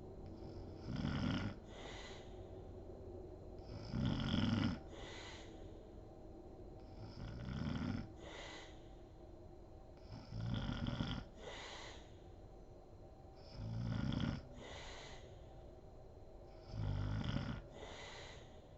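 A sleeping woman snoring: six loud snores at an even pace of about one every three seconds, each followed by a shorter breathy exhale.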